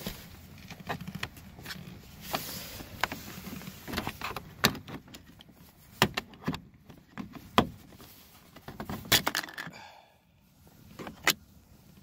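Plastic trim pry tool clicking and scraping against the plastic door-handle bezel of a Ram 1500's door panel: a string of irregular sharp clicks and taps with light scraping between them.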